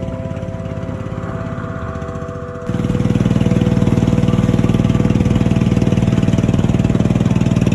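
Wooden riverboat's engine running steadily with a fast even chug, getting clearly louder about a third of the way in.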